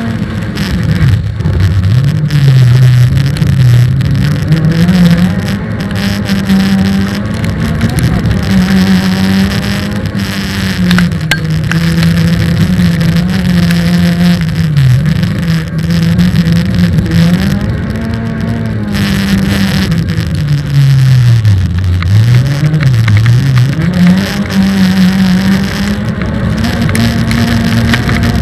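Autocross race car engine at full effort, its revs climbing and dropping over and over as it is driven hard, with a few quick drops and pick-ups in a row near the end.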